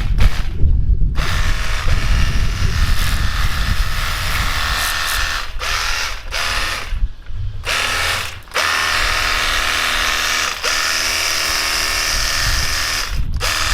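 Cordless handheld battery pressure washer running, its small motor and pump whining over the hiss of the water jet. It stops and starts again briefly several times.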